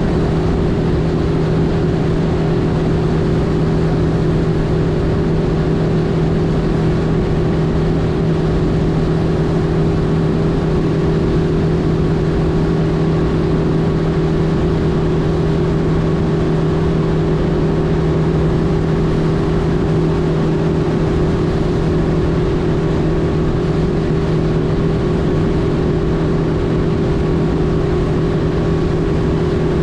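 Mercury outboard motor pushing the boat along at a steady cruising speed: an even engine hum that holds one pitch throughout, with no revving.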